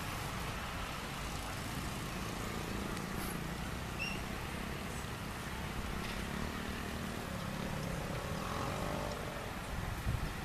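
Steady low outdoor rumble, with a motor vehicle passing by around seven to nine seconds in, its engine note bending in pitch as it goes.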